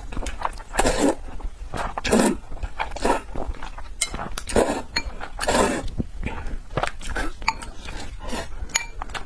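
Close-miked, wet chewing and smacking of fatty red-braised pork belly, a smack about every second, with light clinks of utensils against a bowl in between.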